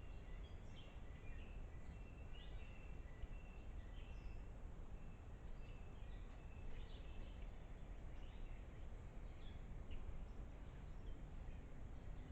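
Wild birds chirping faintly, many short high calls scattered throughout, over a steady low outdoor rumble.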